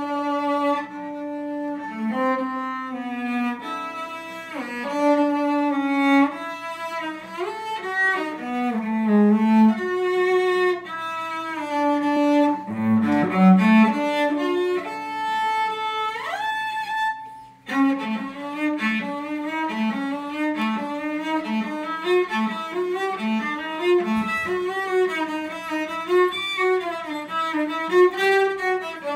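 Solo cello played with the bow: sustained notes and a moving melody, then a long slide up in pitch just past the middle, a brief pause, and a run of short, evenly spaced detached notes.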